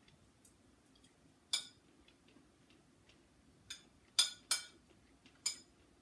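A spoon clinking against a plate as food is scooped from it: about five short, sharp clinks at uneven intervals, the loudest a close pair about four seconds in, with fainter taps between.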